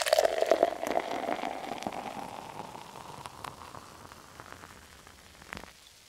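Carbonated beer fizzing: a dense crackle of bursting bubbles, loudest at first and fading away over several seconds, with one sharp click near the end.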